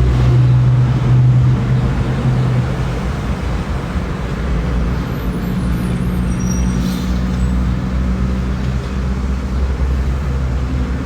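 Car engine and road noise heard from inside the cabin while driving: a steady low hum under a rushing noise, with the engine note starting to climb near the end.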